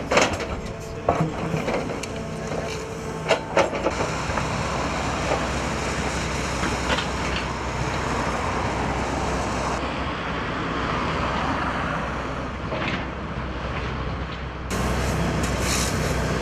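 Construction site noise: a hydraulic excavator's diesel engine running, with several sharp knocks and clanks in the first few seconds as it digs, then a steady rumble of engines and passing traffic.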